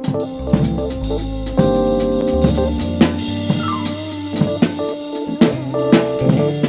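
Jazz band playing: drum kit with snare and bass drum hits, guitar and a walking low bass line.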